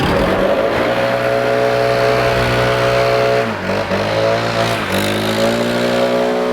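Gas-powered leaf blower running at high throttle, its engine note sagging briefly about three and a half seconds in and again near five seconds, then picking back up.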